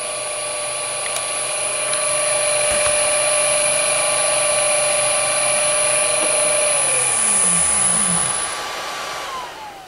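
1 hp three-phase induction motor running unloaded at about 1487 RPM on an XSY-AT1 variable frequency drive set to 50 Hz, with a steady high whine. Near the end the drive ramps the motor down, and the whine falls in pitch and fades as it slows.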